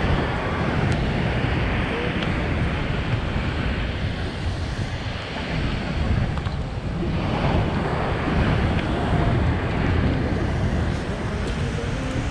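Surf washing onto a beach under wind rumbling on the microphone, the wash swelling near the start and again from about seven seconds in.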